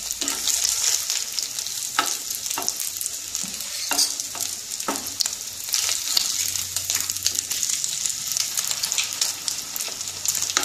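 Batter-dipped bread sandwiches sizzling steadily as they shallow-fry in a non-stick pan, cooking on their first side. A wooden spatula and a steel spoon knock and scrape against the pan every second or two.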